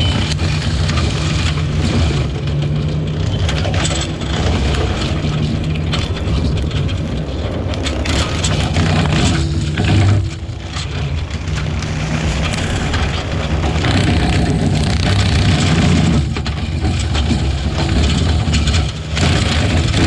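Diesel engine of a Bobcat T650 compact track loader running steadily under load, with a brush cutter shredding brush and sharp cracks of breaking branches.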